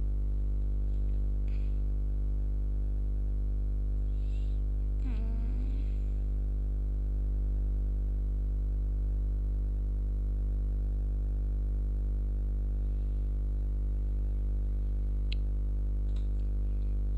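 Steady low electrical hum, mains hum with a ladder of overtones that never changes. Over it come a few faint clicks and a brief murmur of voice about five seconds in.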